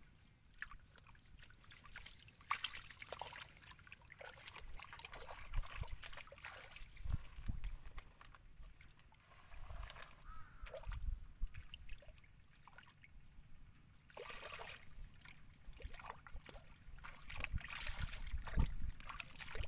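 Hands groping and digging in wet mud and shallow water: irregular squelches, small splashes and sloshes.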